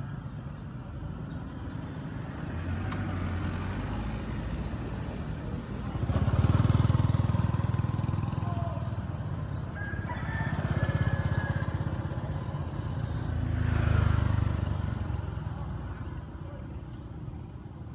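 Motor vehicles passing on a road, their engine and tyre rumble swelling and fading three times over a steady traffic hum, loudest about a third of the way in.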